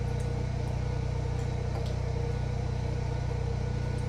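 Backup generator engine running at a steady pitch with an even, unchanging hum, powering the house during a power outage. A couple of faint clicks sound over it.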